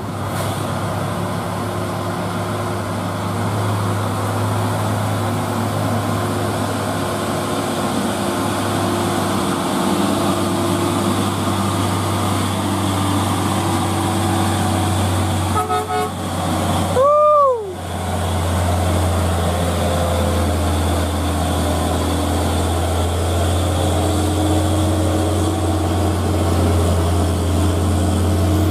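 Diesel truck engine labouring up a steep climb with a steady low drone, as a Hino container truck pulls past. A little past halfway a horn gives a few quick short beeps, then one loud toot that swells and falls in pitch.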